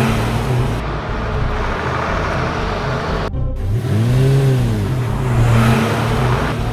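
Car engine sound effect for a car driving along. It has a steady hum and road noise, and about four seconds in the engine note rises and falls again. The sound breaks off briefly a little past three seconds, then carries on.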